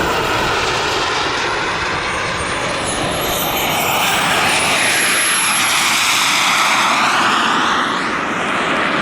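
Turbine engine of a radio-controlled model jet running in flight as it passes, a steady rush with a thin high whine that dips and then climbs in pitch.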